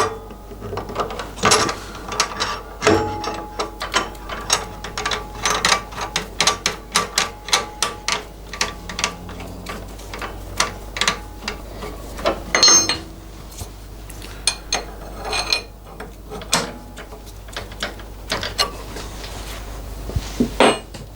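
Metal parts being handled and fitted at a milling machine while a boring head is set up: a run of quick metallic clicks, knocks and ratchet-like clicking, thickest in the first half and sparser later, with a louder knock about 13 seconds in.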